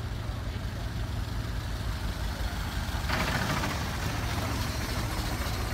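Ford Model T's four-cylinder engine running as the car drives up and passes close by, getting louder about three seconds in.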